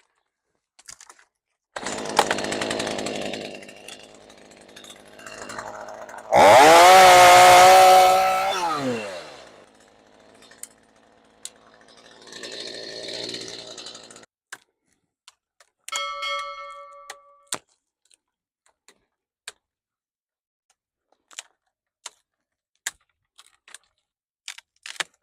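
Stihl MS 212 two-stroke chainsaw, throttled up to high revs for about two seconds and then falling back down in pitch. Quieter spells of running come before and after.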